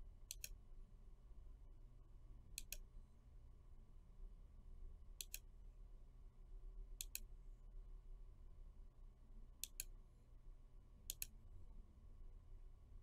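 Computer mouse clicking six times, a few seconds apart, each click a quick press-and-release pair, over a faint low hum.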